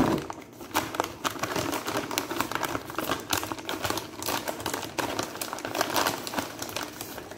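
Clear plastic bag of brown sugar crinkling and crackling continuously as it is opened and handled.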